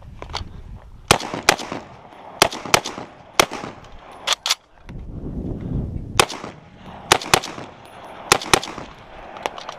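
Rifle fire: about a dozen sharp shots, many in quick pairs, with a pause of over a second around halfway.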